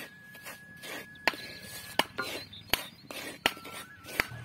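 Wooden spatula stirring semolina dry-roasting in an earthenware pot: a soft scraping with a sharp knock of wood on clay roughly every three quarters of a second, about six in all.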